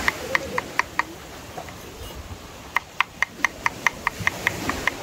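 Kitchen knife slicing garlic cloves on a thick wooden cutting board: quick, even knocks about four a second. They stop after about a second, then start again nearly two seconds later at a slightly faster pace.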